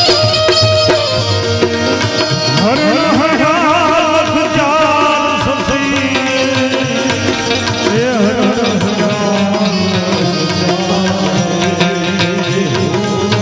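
Indian-style background music: tabla with a melodic line whose notes slide and waver in pitch, densest from a few seconds in until about two-thirds through.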